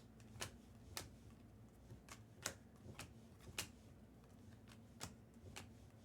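Faint, light clicks and snaps of trading cards being handled and flipped through, about ten of them at irregular spacing over a low steady hum.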